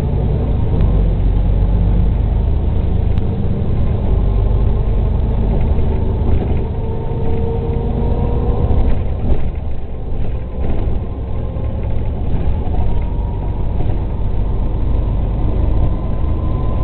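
City bus heard from inside the passenger cabin: the engine and drivetrain run with a steady low rumble. A whine rises in pitch around the middle and again near the end as the bus gathers speed.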